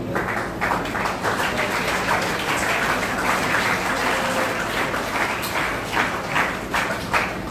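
Audience applauding, starting abruptly and thinning out into scattered separate claps near the end.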